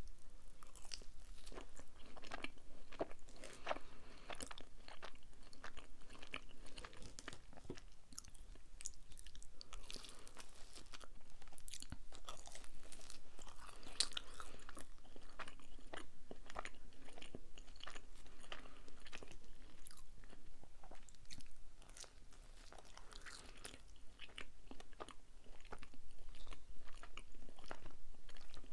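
Close-miked chewing of a slice of cheese pizza, beginning with a bite, heard as a steady run of small mouth clicks and crunches. It goes quieter for a couple of seconds about three-quarters of the way through.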